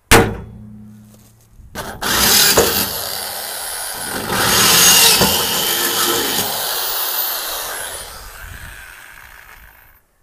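A hammer strikes a centre punch once on the aluminium ute tray, a sharp metallic hit that rings briefly. About two seconds in, an electric drill starts boring into the aluminium and runs loud and steady, winding down over the last couple of seconds.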